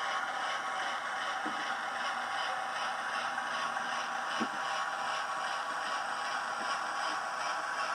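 Hornby class 08 diesel shunter model running, its TTS sound decoder playing a steady diesel engine sound with a regular pulsing beat and a few faint clicks.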